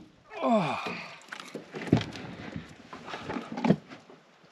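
A man's long 'oh' falling in pitch, then scattered knocks and thumps, the loudest about two seconds in and near the end, as a landing net holding a smallmouth bass is hauled into an aluminum boat.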